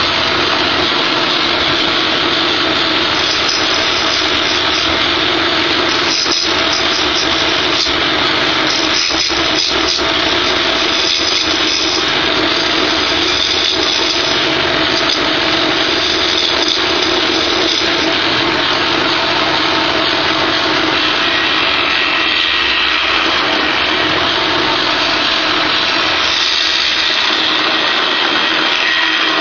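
Wood lathe running with a steady motor hum while a deep-flute bowl gouge hollows the inside of a spinning cherry bowl: a continuous cutting hiss with brief rougher spots now and then.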